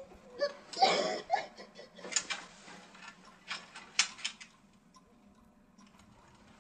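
A woman crying hysterically in breathy, gasping fits that sound close to laughter. There are several bursts in the first four and a half seconds, then it goes quiet.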